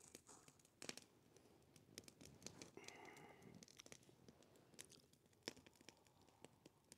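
Faint crackling of a burning wood campfire: irregular small pops and snaps, a few sharper ones standing out.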